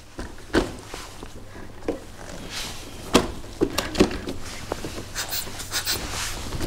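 Scattered light knocks, clicks and rustles of hands handling a 1/10-scale RC crawler's body shell, the sharpest knocks about half a second, three seconds and four seconds in.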